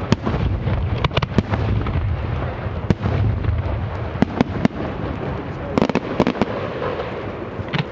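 Fireworks going off: an irregular series of sharp bangs and crackles, some in quick clusters, over a continuous low rumble.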